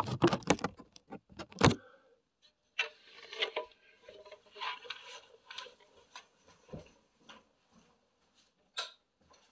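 Handling noise of a camera being set in place: a burst of loud knocks and rubs in the first two seconds, then scattered soft rustles and taps, with one sharp click near the end.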